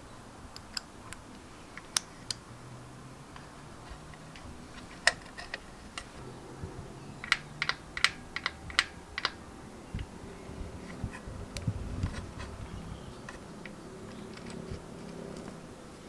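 Scattered sharp metallic clicks and taps as the clutch arm and clutch cable end are handled and fitted on the motorcycle engine, with a quick run of about six clicks around the middle.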